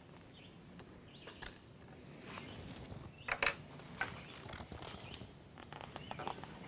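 Faint metallic clicks and short scrapes at the open bolt action of a Traditions muzzleloader rifle as a spent 209 shotgun primer is pried off the breech plug's nipple with a depriming tool. The clearest scrape comes about a third of the way in, with a few small ticks near the end as the rifle is handled.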